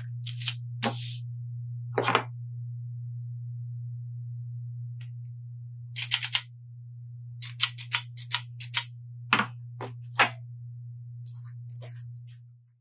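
Parchment paper rustling as it is laid into a metal baking tray, then the lever of a stainless spring-loaded cookie scoop clicking several times, in a quick cluster about six seconds in and again between about 7.5 and 10 seconds in. A steady low hum runs underneath throughout.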